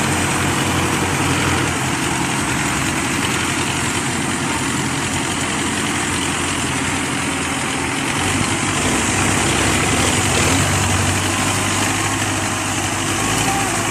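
Diesel tractor engines running steadily, with the low engine note growing stronger from about eight to eleven seconds in.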